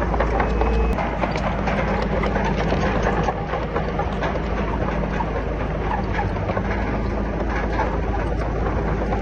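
Heavy diesel earthmoving machinery running steadily under a dense clanking and rattling clatter; a low hum drops away about a second in.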